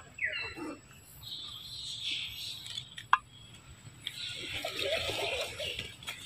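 Macaque mother and infant: a short squeaky call falling in pitch about half a second in, then soft rustling and scuffling with a single sharp click about three seconds in.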